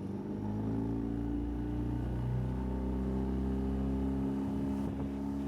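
Outboard motor on a skiff running steadily under way, its pitch shifting slightly a couple of seconds in.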